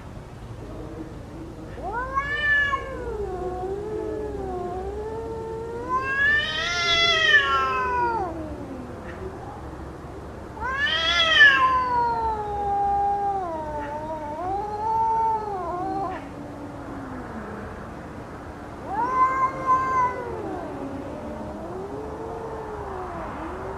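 Cats caterwauling in a fight: long drawn-out yowls that wail up and down in pitch, several in a row, the loudest and highest about seven and eleven seconds in.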